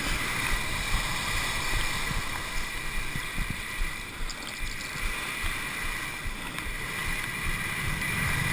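Skis running over dry-slope bristle matting on a downhill run, a steady rushing hiss, with wind rumbling on the moving camera's microphone.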